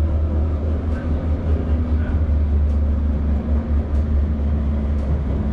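Light rail tram running, heard from on board: a steady low rumble with a faint steady hum above it.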